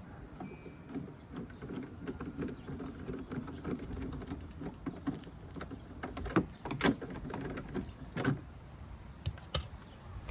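Hands working on a car's taillight and its plastic fittings: an irregular rattle and scrape, then a series of sharp plastic clicks and knocks, the loudest a few seconds before the end.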